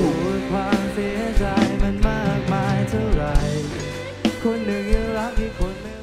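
A rock-pop song: a singing voice over guitar, bass and drums.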